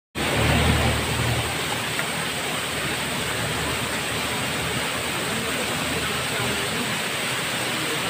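Small waterfall pouring over a rock face and splashing into a shallow pool: a steady rushing hiss, with a low rumble in the first second or so.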